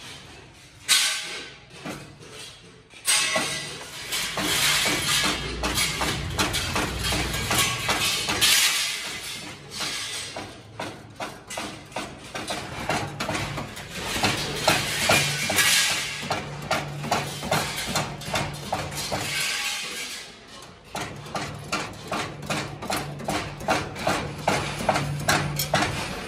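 Hammer striking a hand punch against the stainless steel sheet of a basket, working decorative marks into it. Quick metallic taps run about four a second, with a couple of short pauses.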